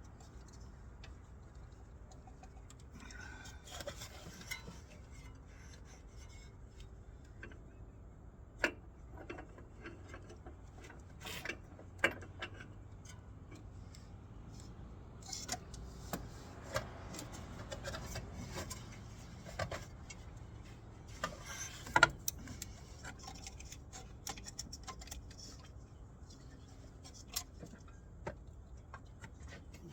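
Scattered light metallic clicks and clinks at irregular intervals, with a few sharper knocks, the loudest about two-thirds of the way through: hand tools and metal engine parts being handled during engine work.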